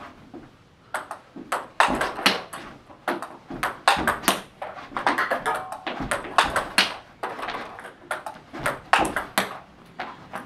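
Table tennis ball hit back and forth with rubber-faced paddles and bouncing on the table in a fast forehand topspin rally. Sharp clicks come about three times a second and stop about a second before the end.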